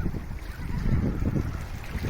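Sea waves lapping and sloshing against the shore, an irregular churning wash with a low rumble beneath it.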